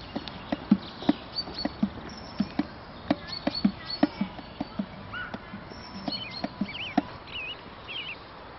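A run of irregular light taps or thumps, several a second, with small birds chirping in the second half.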